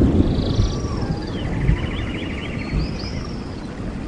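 Intro sound effects: a steady low rumble with high, rapidly trilling, bird-like calls that glide up and down over it.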